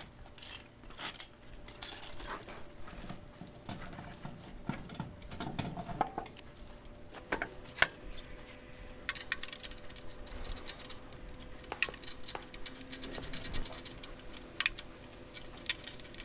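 Scattered metallic clicks and clinks of hand tools and lug nuts as a truck's front wheel is refitted, with a run of fast ticking partway through. A faint steady hum joins about halfway.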